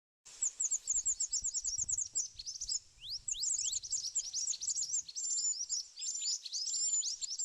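A small bird chirping rapidly and continuously, a fast string of short, high, downward-sweeping notes, with a few short level whistles mixed in after about five seconds. The chirping starts abruptly a moment in.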